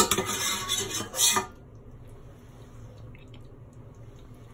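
A metal ladle clinks against the pan, then tomato sauce is spooned and poured onto a plate, for about a second and a half.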